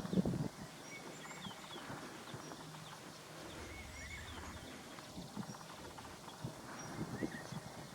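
Faint short bird chirps and twitters scattered throughout, with a few soft low knocks at the very start and again near the end.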